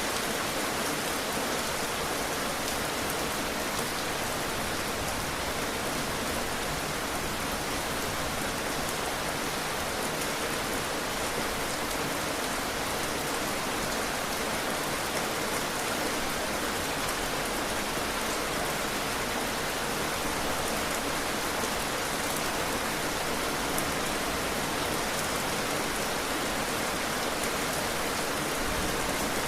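Heavy rain falling in a steady, even hiss with faint scattered drop ticks.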